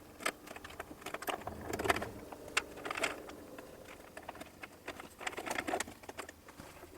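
Scattered small clicks, taps and light knocks of hand tools and parts being handled, irregular and quiet.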